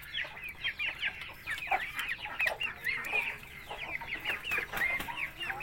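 Chickens calling: a steady run of short, high chirping calls, several a second, with a few lower clucks among them.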